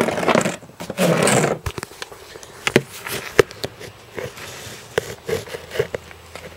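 Handling noise from a handheld camera being moved about: a click, two loud rustles about a second apart, then a run of small knocks and taps.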